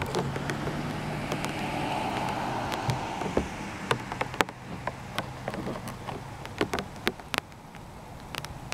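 Distant Norfolk Southern diesel locomotive engine droning steadily as an intermodal train approaches, with scattered sharp ticks of rain.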